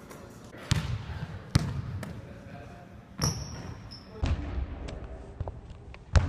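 Basketball bouncing on a hardwood gym floor: several sharp, unevenly spaced thuds that ring in the hall. A brief high squeak comes a little over three seconds in.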